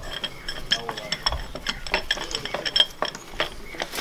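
Irregular light metal clinks and clicks as an external spring compressor's hooks and threaded rod are fitted and adjusted onto a strut's coil spring.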